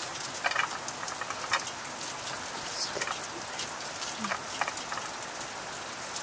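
Short crisp snips of a curved sickle blade slicing through a handful of fresh leafy greens, in quick irregular strokes over a steady hiss.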